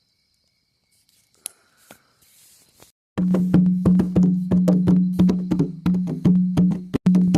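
Near silence with a few faint clicks, then, a little over three seconds in, music starts suddenly: a steady low droning note under a fast clacking percussion beat.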